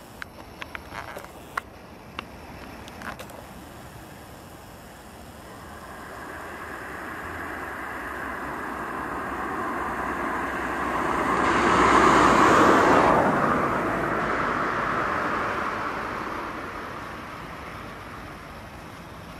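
A road vehicle passes, swelling to its loudest about twelve seconds in and then fading away. A few sharp clicks come in the first few seconds.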